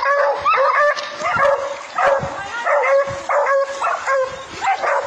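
Hunting dogs (greyhounds) barking and yelping in a quick series of short, high calls, about two a second.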